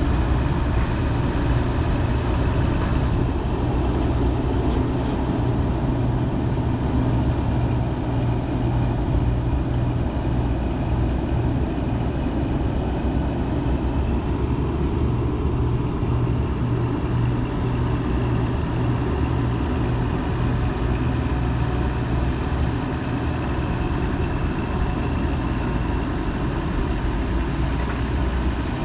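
A heavy diesel engine running steadily with a low, even drone.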